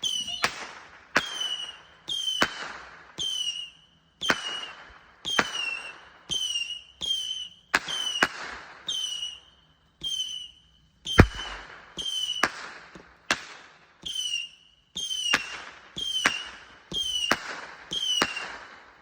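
A multi-shot fireworks cake firing shot after shot, about one a second. Each shot is a sharp bang followed by a short, slightly falling whistle and a fading crackle. The loudest, deepest bang comes about halfway through.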